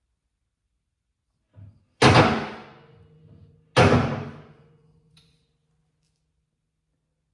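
Two heavy metal clanks, about two seconds apart, each ringing and dying away over roughly a second. A small click follows a little later.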